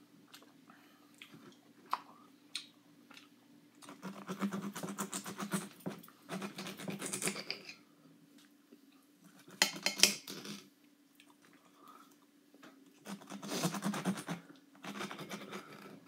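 Wet, crunchy rasping of a fresh pineapple being cut with a knife and eaten, in three bouts of a second or more each, after a few small clicks at first.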